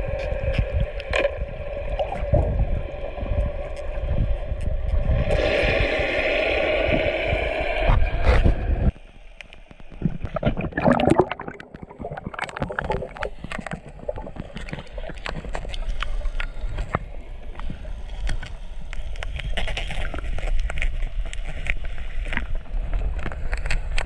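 Underwater sound picked up by a diver's camera: a steady boat-motor drone carried through the water, with bubbling and scattered clicks, for about the first nine seconds. Then the drone drops away suddenly, leaving quieter clicking and crackling.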